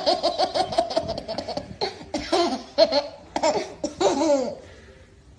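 Baby laughing: a quick run of high-pitched laughs, then several separate laughs that fall in pitch, dying away near the end.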